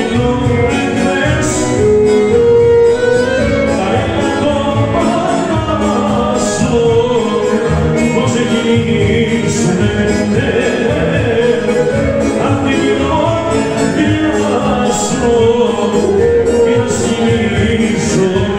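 Live Greek folk dance music from a band amplified through loudspeakers, with a clarinet carrying a sustained, winding melody over the accompaniment.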